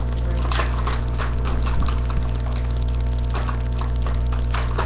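Steady low hum with many small, scattered clicks and rustles, as of objects being handled close to the microphone.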